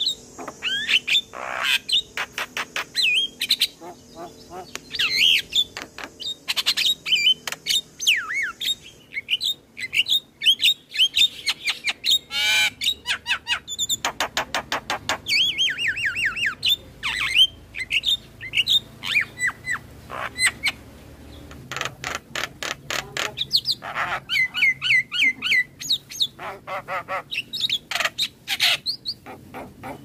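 Javan myna singing a fast, varied jumble of sharp clicks, whistled notes that sweep up and down, and harsh squawks, with rapid rattling trains of clicks around the middle and again near the end.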